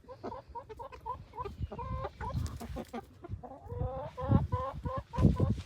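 A small flock of chickens clucking, many short calls one after another.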